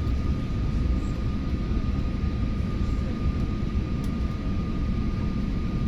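Steady low rumble of a jet airliner's engines and rushing air, with a thin steady whine above it.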